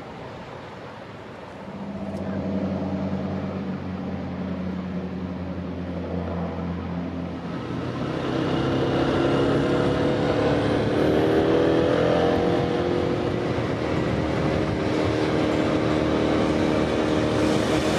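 A small engine running at a steady low pitch, then about eight seconds in a motor scooter's engine gets louder and higher as it rides along, its pitch rising and falling with the throttle.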